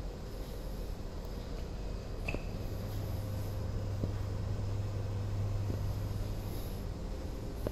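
Steady low room hum, as from equipment fans or ventilation, with a few faint ticks about two, four and six seconds in.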